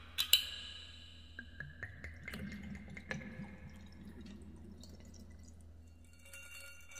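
Ice cubes clinking in a wine glass twice near the start, then soju poured from a bottle over the ice, pouring and dripping.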